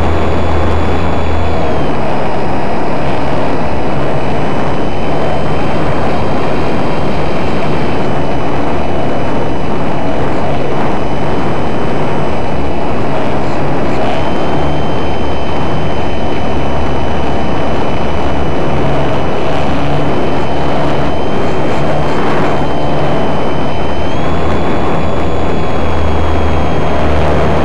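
RC model airplane's motor and propeller whining under heavy wind rush, heard from the plane itself. The whine steps down in pitch about two seconds in and steps back up near the end as the throttle changes.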